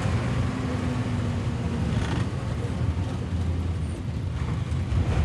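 Engine and road rumble of a moving bus on a dirt road, heard from inside the vehicle: a steady, loud, low drone.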